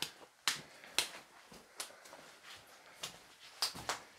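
Footsteps crunching on loose rock in a mine passage: a few sharp steps about half a second apart at the start, then slower, scattered steps.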